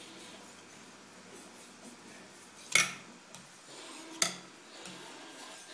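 Knife blade being stroked back and forth on a whetstone, with a steady faint rasp, and two sharp metallic clinks about a second and a half apart midway through.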